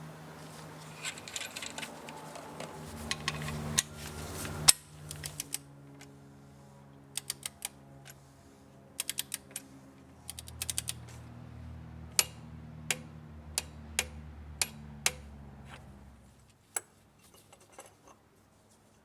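Sharp clicks and taps, some in quick runs of two to four, over low humming tones that shift in pitch. The clicks grow sparse and the hum stops about three seconds before the end.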